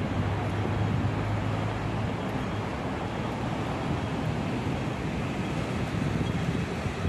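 Steady wash of traffic noise from a wide city road, with wind on the microphone. A low hum sits under it for the first couple of seconds, then fades.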